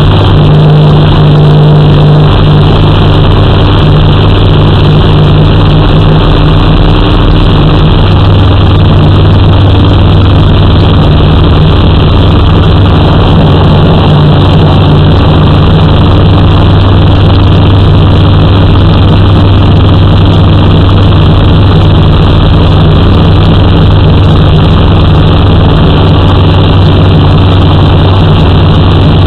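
J-3 Kitten ultralight's engine and propeller running steadily in cruise flight, a constant low engine drone with heavy air rush over the wing-mounted camera.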